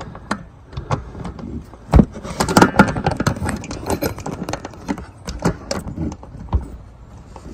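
Hand rivet nut tool being worked to set a rivet nut in a solar panel frame: irregular clicks and knocks as the tool and nut move, with one sharp knock about two seconds in.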